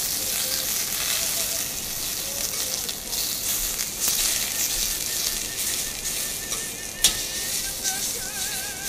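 Foie gras and pieces of bird breast frying in olive oil in a saucepan: a steady sizzle as they are stirred and turned with a utensil, with one sharp tap about seven seconds in.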